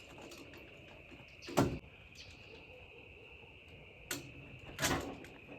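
Insects trilling steadily and high-pitched, with three knocks or thumps: a loud one about a second and a half in and two more near the end.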